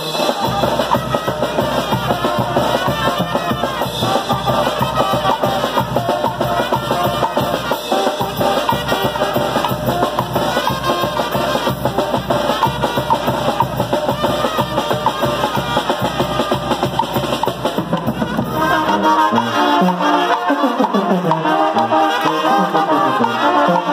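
Mexican brass band playing: a sousaphone, trumpets, a trombone and a bass drum. About nineteen seconds in, the low drum rumble drops out, leaving the horns over a moving bass line.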